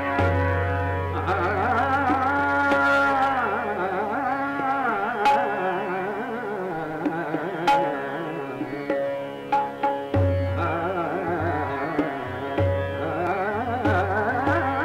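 Male Hindustani classical vocal singing Raag Kafi Kanada, the voice gliding and wavering in long ornamented phrases over a steady drone, with occasional tabla strokes.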